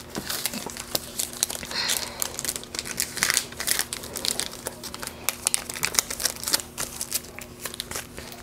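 Clear plastic packaging crinkling and crackling in irregular bursts as sheets of dot stickers are handled and slid back into it.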